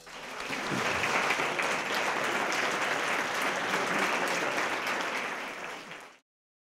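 Crowd applauding steadily, fading near the end and then stopping abruptly.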